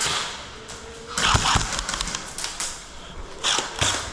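Airsoft gun firing two short bursts of rapid clicking shots, about a second in and again near the end.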